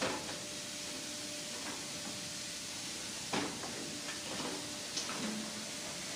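Mucking loader working its digging arm: a steady hiss with three sharp metallic knocks, one at the start, one about three seconds in and one about five seconds in.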